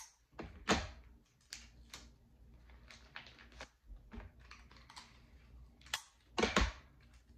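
Tape and a cardboard shipping package being handled as a label is taped on: irregular taps, clicks and crinkles, with a louder knock about a second in and a heavier thump near the end.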